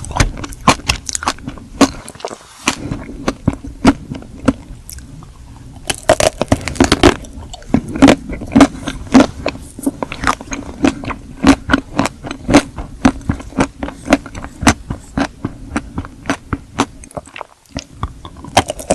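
Close-miked biting and chewing of a chocolate-coated Magnum ice cream bar. The hard chocolate-and-nut shell cracks and crunches in many quick, sharp clicks.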